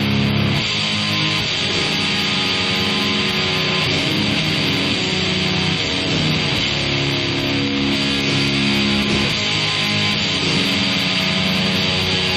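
Background rock music with guitar, held chords going on steadily.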